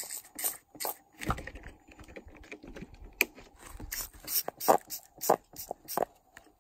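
Compressed air escaping through the leaking mechanical seal (presetupa) of a Linhai ATV water pump, spluttering out through soapy water at the weep hole in irregular pops and crackles as the bubbles form and burst. The leak is the sign that the seal has failed.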